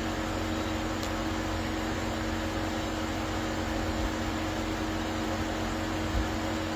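Steady background hum and hiss, with two constant low tones and no other events.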